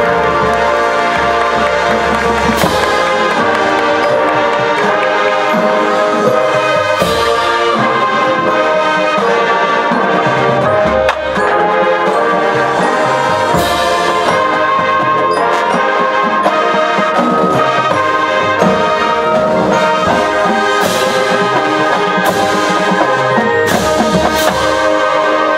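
High school marching band playing a loud, sustained brass passage with percussion, with sharp hits several times along the way.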